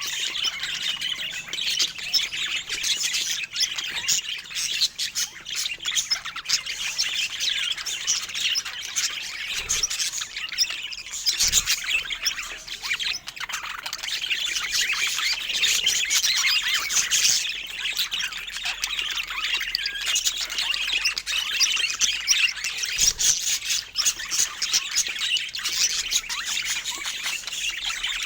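Budgerigars chattering steadily: a dense, high-pitched warble made of many short calls, with no break.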